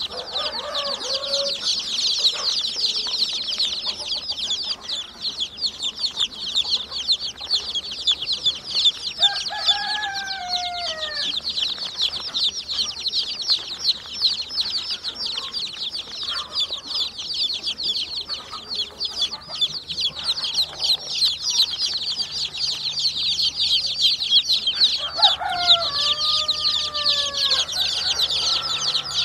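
A crowd of baby chicks peeping nonstop, a dense chorus of short, high, falling chirps. Twice, about ten seconds in and again near the end, a lower, longer falling call sounds over them.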